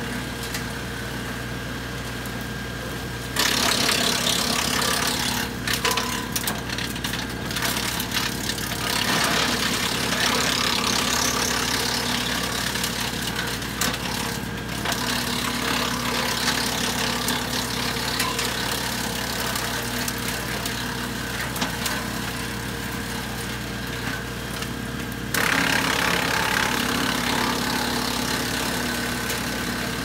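PTO-driven Woodland Mills wood chipper running behind an LS XR3135 compact tractor's diesel engine, shredding brush as branches are fed in. The engine hum is steady, and a loud rushing, crackling chipping noise starts suddenly about three seconds in and surges again near the end as a new load goes in.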